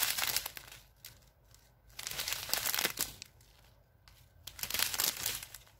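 Small clear plastic bags of diamond-painting resin drills crinkling as they are handled, in three bursts.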